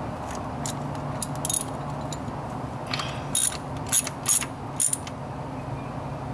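Socket ratchet clicking in short strokes as the new distributor's hold-down bolt is tightened: a few light runs of clicks near the start, then four or five sharper bursts in the middle.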